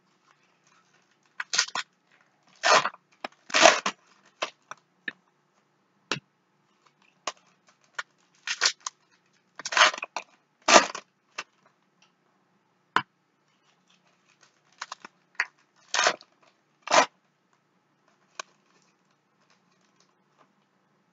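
Foil trading-card wrappers being torn open and crumpled in irregular bursts of crinkling, with short sharp clicks between them as the cards are handled.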